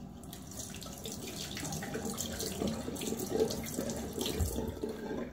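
A bathroom tap running steadily into the sink while the safety razor is rinsed between shaving strokes. The water is shut off suddenly near the end.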